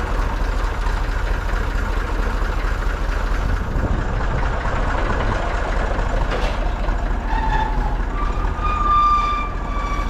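Small farm tractor's engine running steadily, working its hydraulic lift. Near the end a steady whining tone comes in over the engine.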